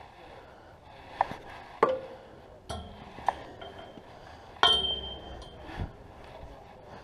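Fishing line and tackle knocking against a metal dock railing: a series of sharp metallic clinks, about five. The loudest comes about four and a half seconds in and leaves a short high ringing note.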